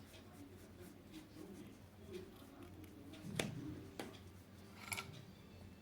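Quiet room with a steady low hum and a few light taps and clicks from watercolour painting: brush and palette or water jar. The loudest is a knock about three and a half seconds in, followed by a click a moment later and a small ringing tap near the end.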